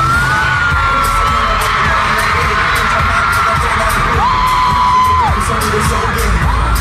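Live concert music, loud and bass-heavy, with a steady beat of hits and a long held high melody line over it.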